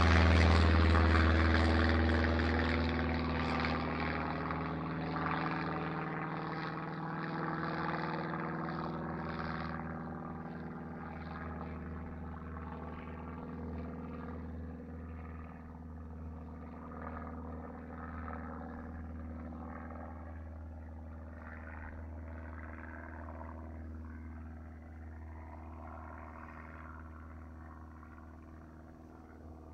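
Single-engine light sports plane climbing out after takeoff: its propeller engine runs at a steady low pitch overhead and grows steadily fainter as the plane flies away.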